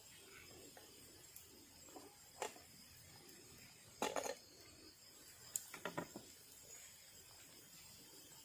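A few short, scattered knocks and clicks, loudest in a cluster about four seconds in and again around six seconds, over a faint, steady, high-pitched hum of night insects in a tropical forest.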